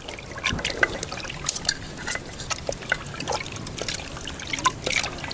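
Tomatoes being squeezed and crushed by hand in a bowl of water, with irregular small splashes and drips.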